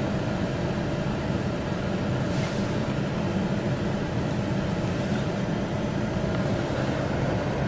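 Steady car cabin noise while driving: a low engine and road rumble with a faint steady hum.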